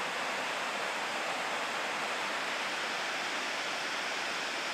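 Steady rush of falling water from a tall waterfall, the Ouzoud falls: an even hiss at one level throughout.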